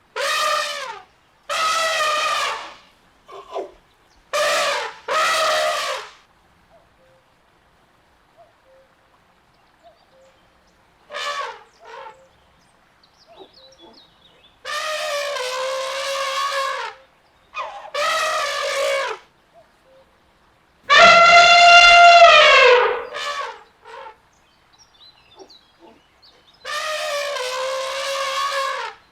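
Elephants trumpeting: a series of about ten calls, some short blasts and some held for one to two seconds, with quiet gaps between. The loudest and longest call comes about three-quarters of the way through and rises, then falls in pitch at its end.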